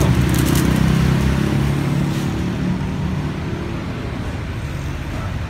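Low, steady engine rumble of a motor vehicle, easing a little over the first couple of seconds.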